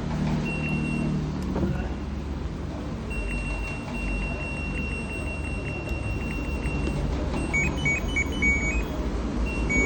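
Short electronic beeps from a repaired LG front-load washing machine's touch control panel, a sign that the touch buttons respond again. Near the end comes a quick run of beeps at a few different pitches. Earlier a high tone is held for several seconds, and a low steady rumble runs underneath.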